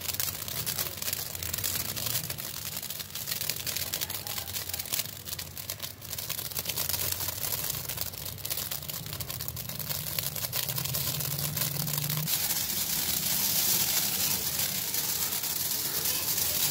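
Handheld sparklers burning, with a continuous fizzing hiss full of fine, rapid crackles from the spitting sparks.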